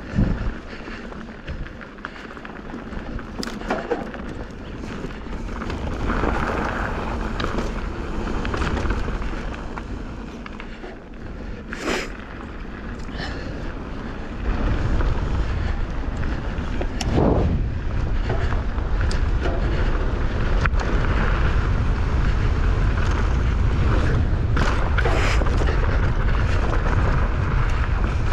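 Mountain bike riding fast down a dirt trail: wind rumbling on the microphone, over tyre noise on dirt and rock, with scattered sharp knocks and rattles from the bike on rough ground. The wind rumble grows louder about halfway through and stays loud.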